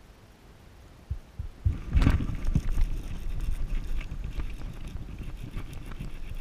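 Wind buffeting the microphone: a rough, gusty rumble that starts about two seconds in, just after a couple of knocks.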